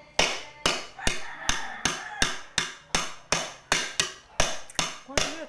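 A child banging a metal spoon down again and again, about three sharp strikes a second, each with a short ring. The strikes stop shortly before the end.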